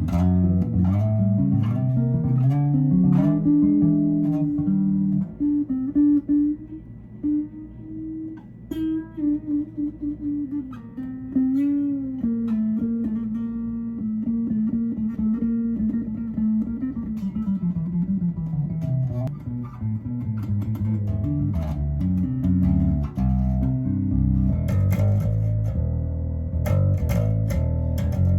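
Electric bass guitar played solo through an amplifier: a run of plucked notes, a long held note in the middle, then a slide down in pitch, with busier playing near the end.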